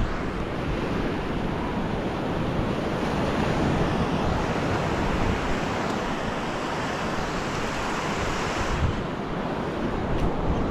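Ocean surf washing up a sandy beach, a steady rushing noise, with wind buffeting the microphone.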